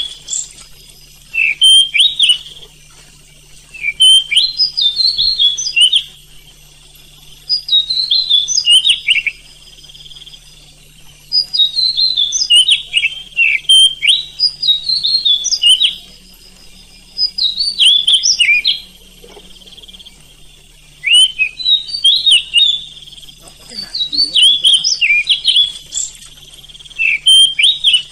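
Oriental magpie-robin singing in repeated bursts of rapid, high whistled phrases, many notes sweeping downward, each burst two to four seconds long with short pauses between. A faint steady low hum runs underneath.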